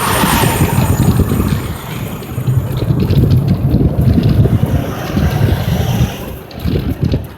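Interstate highway traffic with trucks: a loud, fluctuating low rumble with wind on the microphone, easing a little near the end.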